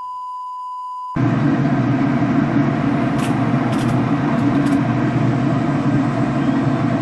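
A steady electronic beep at one pitch cuts off about a second in. A loud, steady rumble follows and runs on with a few faint clicks.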